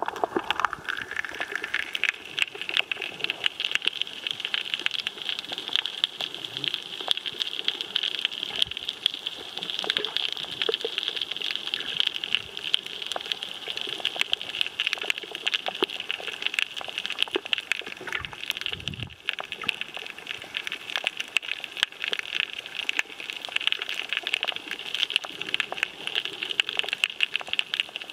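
Underwater reef ambience recorded by a submerged camera: a dense, steady crackle of fine clicks with a hiss, with a couple of low knocks about two-thirds of the way through.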